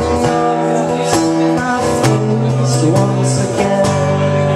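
Acoustic-electric guitar strummed in a steady rhythm, with a man singing over it.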